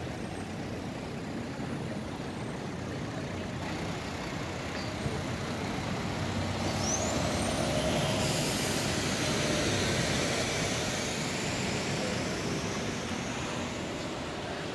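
Street traffic noise, with a passing heavy vehicle swelling louder in the middle and fading. A thin, high rising squeal is heard briefly in the middle.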